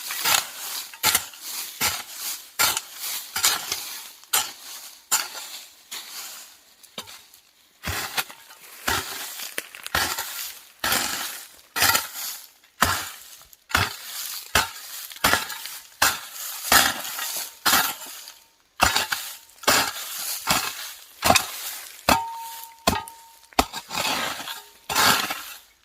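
Hand hoe chopping and scraping through weedy soil, about one stroke a second: each a sharp strike of the metal blade into the ground followed by a short gritty drag.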